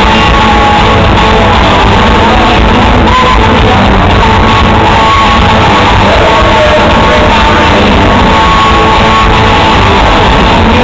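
Live rock band with electric guitars and drums playing very loud on stage, heard from the audience, with a voice singing over it.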